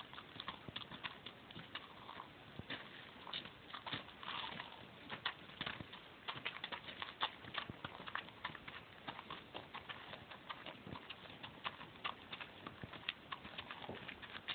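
Tennessee Walking Horse's hooves striking gravel as it moves at a brisk gait: a quick, uneven series of hoofbeats.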